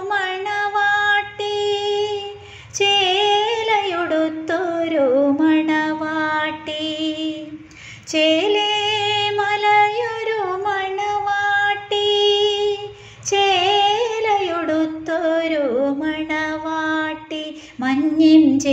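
A woman singing a Malayalam song in long phrases, holding notes with vibrato and sliding between pitches, with short breaths between phrases.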